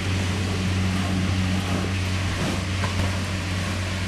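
Bouncy castle's electric inflation blower running, a steady low hum over the rush of air.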